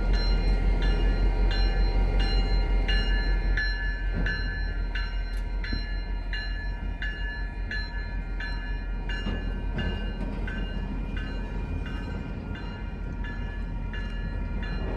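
Grade-crossing warning bell ringing steadily, about two strokes a second, while an MBTA diesel locomotive and its flatcars roll through the crossing. The locomotive's low engine rumble is loudest at first and eases about three and a half seconds in as it passes, leaving the flatcars rolling by.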